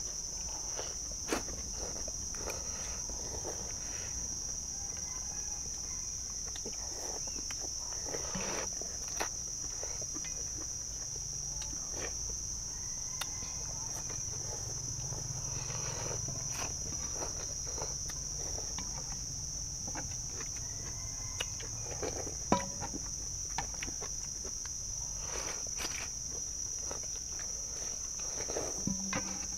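Insects chirring steadily at a high pitch, with scattered slurps of noodles and broth and clicks of chopsticks and spoons against stainless steel bowls. The sharpest click comes about two-thirds of the way in.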